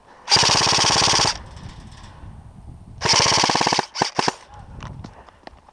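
An airsoft gun fires two full-auto bursts of rapid, evenly spaced shots, the first about a second long and the second a little shorter, a couple of seconds apart. A few single sharp clicks follow near the end.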